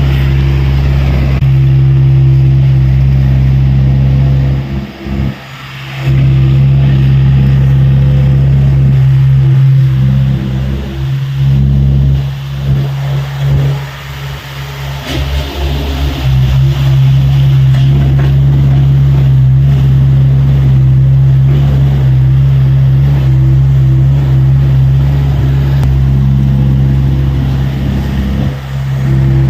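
Diesel engine of a Tata Hitachi EX70 excavator running steadily under work, with a brief drop in level about five seconds in and an uneven stretch between about ten and sixteen seconds.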